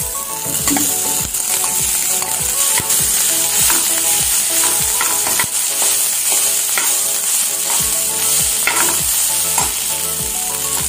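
Cooked rice being stirred with a steel spoon into a hot pan of oil, peanuts and dal: a steady sizzle with the spoon scraping and knocking against the pan many times.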